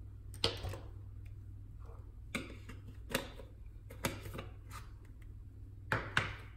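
Scattered sharp clicks and light taps, about seven at irregular intervals, of makeup containers and brushes being handled and set down, over a steady low hum.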